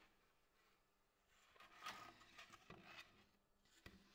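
Faint scraping and a few light knocks of wood as a freshly sawn linden burl slab is slid and lifted on the bandsaw table, with one sharper knock near the end.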